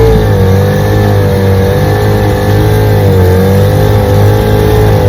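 1947 Johnson HD-25 2.5-horsepower two-stroke outboard motor running steadily under way, pushing a small boat, its pitch wavering slightly up and down. It is running well.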